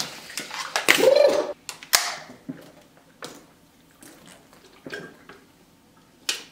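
A drink can handled and then drunk from in gulps, with a sharp click about two seconds in and fainter gulping sounds after it.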